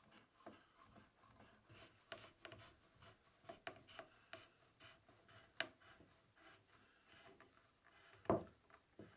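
Faint scraping and rubbing of wooden hand-held blocks worked along the edge of a red oak board, with scattered light wood-on-wood clicks and one louder knock near the end.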